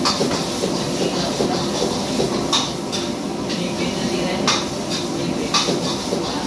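Stir-frying in a wok over a commercial gas wok burner: a steady rushing noise from the burner and extractor hood, with a metal ladle striking the wok in four sharp clanks.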